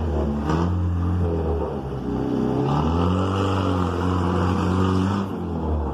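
Engine of a 1972 Chevrolet Opala running through a straight-piped exhaust with no muffler. The engine note dips about two seconds in, then revs up and holds a higher pitch before falling back near the end.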